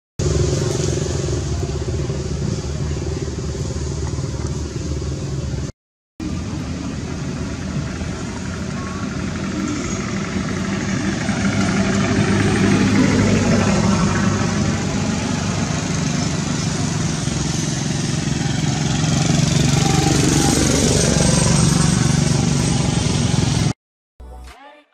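Motor vehicle engine running, loud and continuous, cut off briefly about six seconds in.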